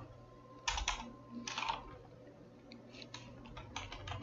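Typing on a computer keyboard, soft and fairly quiet. Two louder keystrokes come about one and one and a half seconds in, then a quicker run of lighter key taps in the last second and a half.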